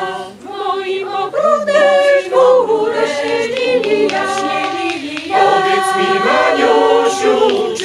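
Mixed choir of women's and men's voices singing a traditional Polish folk song a cappella in harmony, with a short breath between phrases just after the start.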